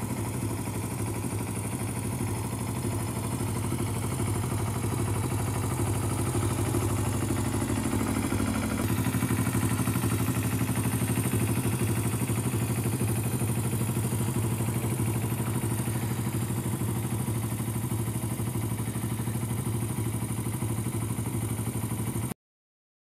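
1980 Kawasaki Z250 A2's parallel-twin four-stroke engine idling steadily, a little louder from about nine seconds in. The sound cuts off abruptly just before the end.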